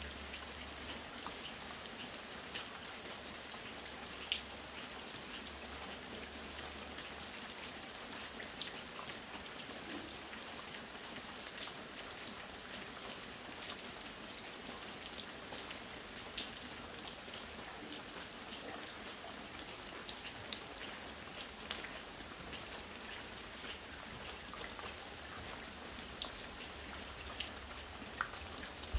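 Fine rain falling steadily, with many scattered sharp ticks of single drops, some of them drips from a roof edge.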